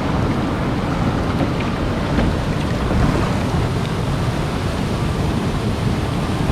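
Steady rush of sea water with wind rumbling on the microphone.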